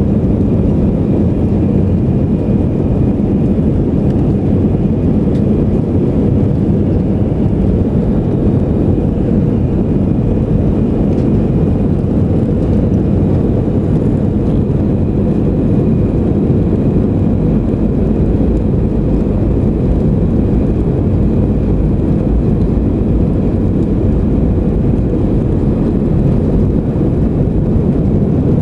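Jet airliner on its takeoff roll, heard from inside the cabin: a loud, steady engine roar with heavy low rumble, and a faint steady high whine above it.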